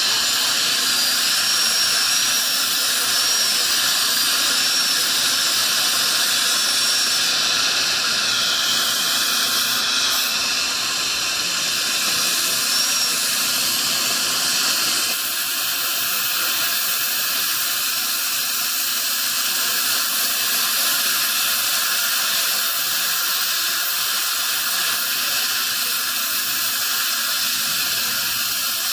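High-speed dental handpiece whining during tooth preparation, its pitch wavering and dipping lower for a couple of seconds, over a steady loud hiss. The whine comes and goes in the first half, and the hiss carries on alone after that.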